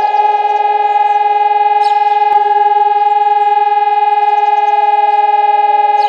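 Hörmann ECN 1200 electronic siren sounding a loud, steady tone with a second lower tone under it. About four seconds in, a further tone begins to slide down in pitch.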